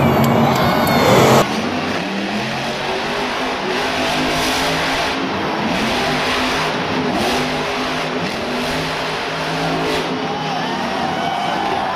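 Monster truck's supercharged engine revving up and down again and again. The level drops suddenly about a second and a half in, where one recording gives way to the next.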